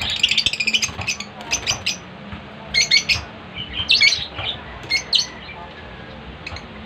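A bird calling in clusters of quick, high-pitched notes, about once a second for the first five seconds, then falling quiet.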